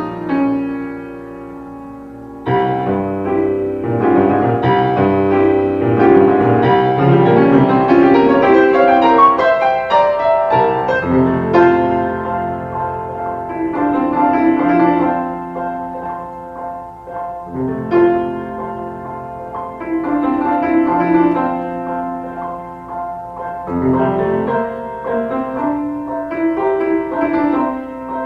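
Background piano music: slow chords and melody notes struck and left to ring.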